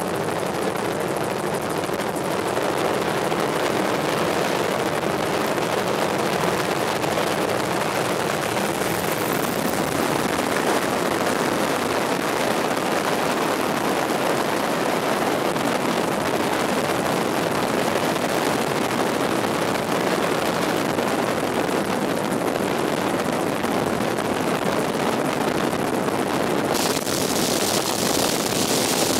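Helicopter in flight, heard from on board: a steady, dense drone of engine and rotor noise that turns hissier near the end.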